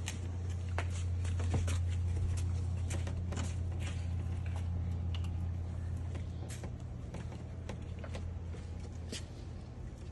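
A steady low hum, louder in the first half and fading after about six seconds, with scattered light clicks and taps throughout.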